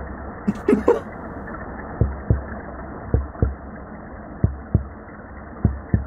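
Shi drum (Umbrina cirrosa) making low knocking pulses underwater, in pairs about a third of a second apart, a pair roughly every 1.2 seconds, over a steady hiss. The pulses sound like someone knocking, or a heartbeat.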